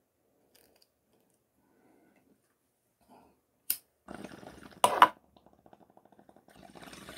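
Near silence, then off-camera handling noises: a sharp click about three and a half seconds in, then rustling, two loud knocks in quick succession, and a fast rattling run of small ticks.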